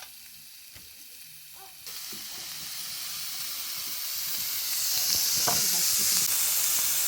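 Food frying in a hot pan: a sizzle that gets much louder about two seconds in and keeps building.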